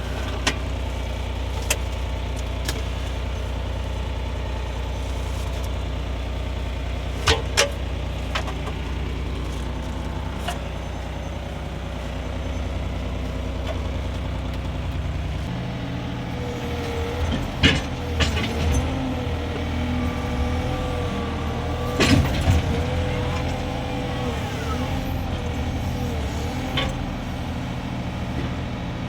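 Mini excavator's engine running steadily, with sharp knocks now and then. About halfway through, the engine note changes and a wavering whine sets in while the machine works, with clanks at several points.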